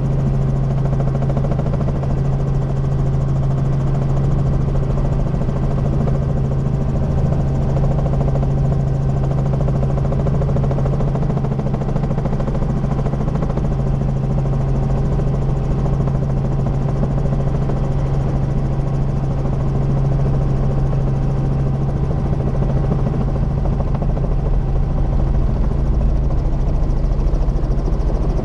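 Helicopter running with a steady, unbroken low drone of engine and rotor.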